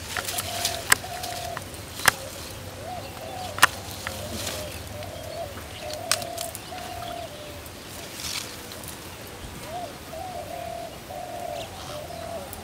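A dove cooing over and over in short repeated phrases, with a few sharp snaps and rustles of taro plants being handled and picked in the first few seconds.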